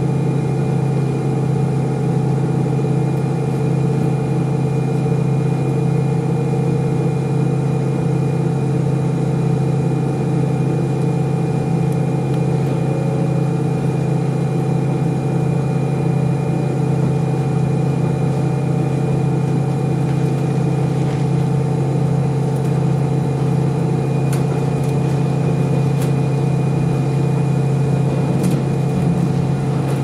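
KiHa 40 diesel railcar running steadily, heard from inside the passenger cabin: an even, unchanging engine drone with the running noise of the train. A few faint clicks in the second half.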